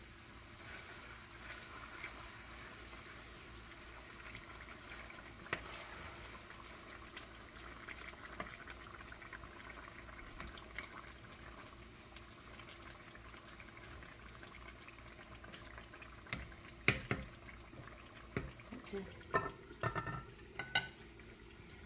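Vegetables cooking in oil in an enamelled cast-iron pot with a steady quiet sizzle and bubbling, stirred with a wooden spoon. Near the end come a few sharp knocks as the spoon and the pot lid strike the pot.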